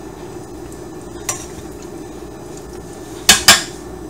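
Metal tongs clinking against a stainless steel colander of peeled shrimp, twice in quick succession near the end, with a single click about a second in, over a steady low hum.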